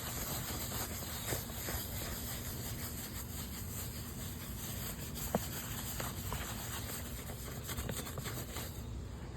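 Wet paper towel rubbing and scrubbing old graphics adhesive off a plastic dirt-bike number plate: a steady rasping rub made of quick strokes that stops near the end, with a couple of light clicks.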